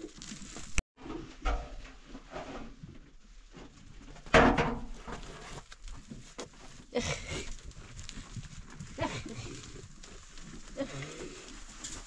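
Goats bleating now and then amid rustling movement, with the loudest call, short and harsh, about four seconds in.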